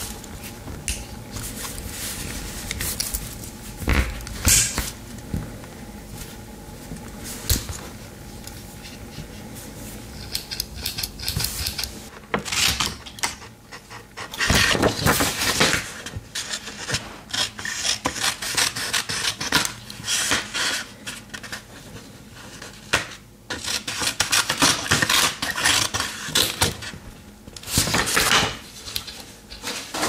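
Metal tools of a Victorinox Ranger Swiss Army knife scraping and rubbing, in scattered strokes at first and then in repeated clusters of quick strokes.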